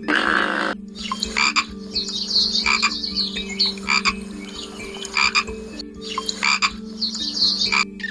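Frogs croaking in repeated short calls over a steady low hum.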